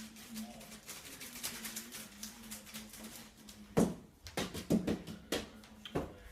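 A few light taps and knocks, about five spread over the last two and a half seconds, over a faint steady hum.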